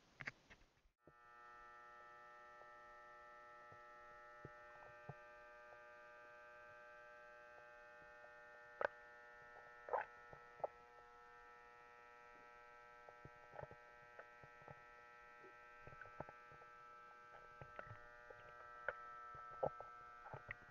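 Faint underwater sound as the camera goes under about a second in: a steady electronic hum of several fixed pitches, with scattered sharp clicks and taps, a few of them louder near the middle.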